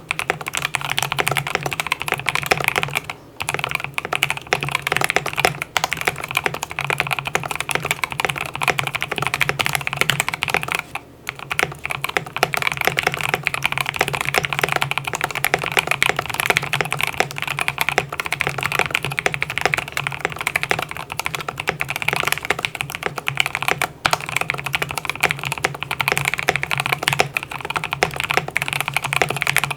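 Continuous fast typing on a KBD67lite R2 mechanical keyboard with Alpaca linear switches on UHMWPE stems in a polycarbonate plate: a dense run of keystroke clacks, broken by short pauses about three, eleven and twenty-four seconds in.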